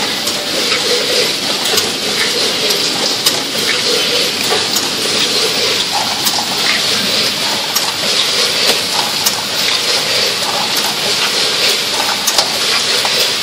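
Multihead weigher and packing machinery running: a steady loud hiss with scattered short clicks and clacks.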